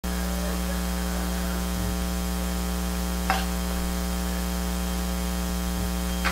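Steady electrical mains hum and buzz from an amplified stage sound system, with a faint knock about three seconds in.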